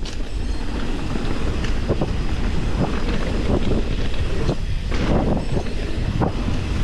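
Wind buffeting the action camera's microphone as a Canyon Spectral 29 AL 5 mountain bike rolls down a dirt singletrack, with frequent short knocks and rattles from the tyres and bike over rough ground.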